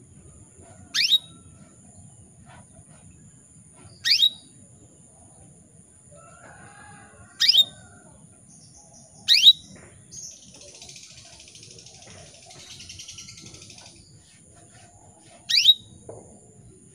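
Female canary calling with short, sharp chirps that sweep down in pitch, five at uneven gaps of about one to six seconds, with a softer hissy stretch of a few seconds midway. This is the call of a female in breeding condition calling to males.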